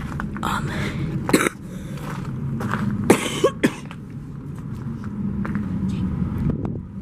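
A person coughing a few times, loudest about three seconds in, over a steady low hum.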